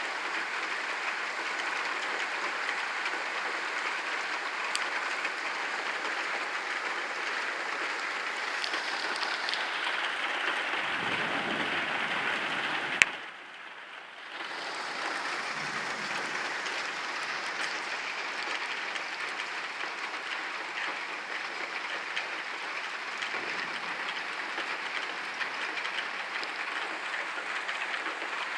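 Heavy rain pouring down in a steady, dense hiss. About thirteen seconds in there is a sharp click and the sound drops away for about a second before the downpour comes back.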